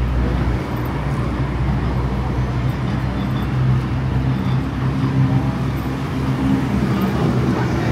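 Road traffic on a busy city street: vehicle engines running and tyres passing as a steady din, with a low engine hum loudest through the middle.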